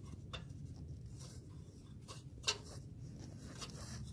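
A few light clicks and taps over a faint, steady low hum, the loudest click about two and a half seconds in.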